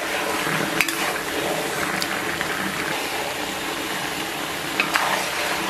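Hot stew of pork belly, sauerkraut and potatoes sizzling in a wok as it is stirred and tossed with a metal ladle, with a few light clicks of the ladle against the pan.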